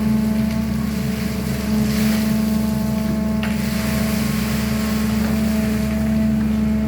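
SANY excavator's diesel engine running at a steady pitch, with a hiss rising and falling over it.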